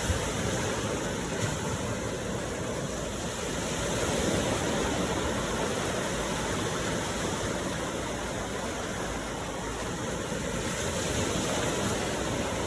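Ocean water rushing steadily, a continuous wash of surf noise.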